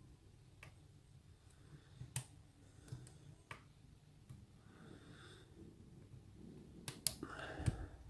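Faint, scattered clicks of a hook pick and tension wrench working the pin tumblers inside a US Lock rim cylinder, a second or more apart with a quick cluster near the end. The picker takes the odd feedback for standard pins.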